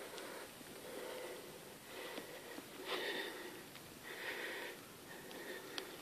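Someone walking a leaf-covered dirt forest trail: rustling, crunching steps and breathing come as uneven bursts about once a second, with a few small clicks of twigs or leaves.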